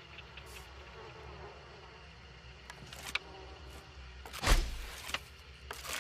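A hunting bow shot: one sharp, loud thwack about four and a half seconds in, after a couple of faint clicks, over a low steady hum.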